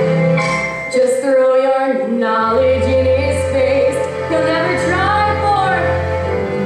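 A woman singing a Broadway show tune with instrumental accompaniment; a low bass line comes in about two and a half seconds in, and she holds a note with vibrato around five seconds in.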